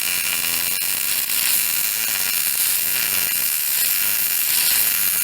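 Electric welding arc on steel, a steady, dense crackling hiss, as a steel bar is welded onto a lawn mower deck.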